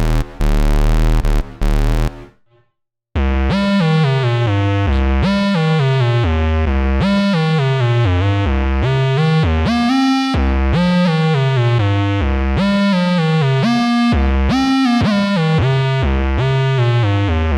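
Vermona Mono Lancet '15 monophonic analog synthesizer played dry: first a held, chopped bass tone, then after a brief gap a run of punchy bass notes, many sliding down in pitch.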